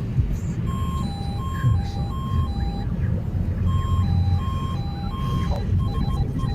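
Lada Vesta's instrument-panel siren sounding a two-tone alarm, alternating higher and lower beeps in runs of about two seconds, with a pause between runs and a quicker alternation near the end, over the car's low running rumble. It is a false alarm that sets off with no warning light or other fault showing.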